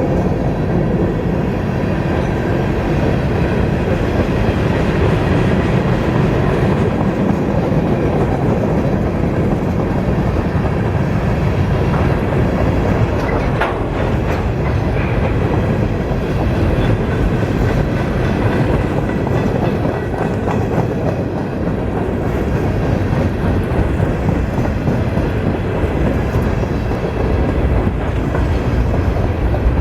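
Freight train cars rolling past with a steady wheel rumble and clickety-clack over the rail joints, and a few metallic clanks about halfway through.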